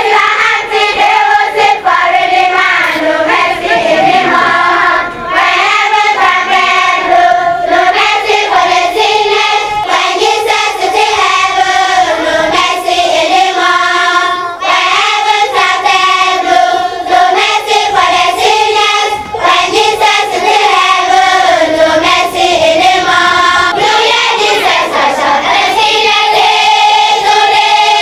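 A choir of children singing a song together, the voices steady and loud.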